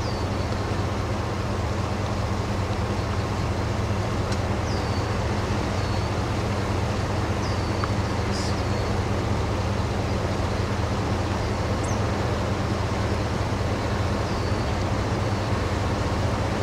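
Steady roar of wind from a large, violent wedge tornado close by: an unbroken rushing noise with a low rumble underneath. Faint short high chirps sound about every second.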